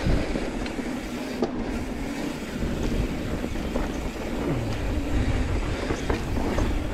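Mountain bike riding fast down a dirt trail: a steady rumble of knobby tyres on the ground, with the frame and parts rattling and clicking over bumps.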